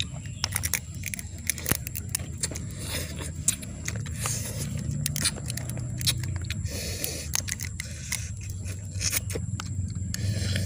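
Cooked crab shell being cracked and picked apart by hand and eaten: a run of small sharp clicks and scrapes at irregular intervals.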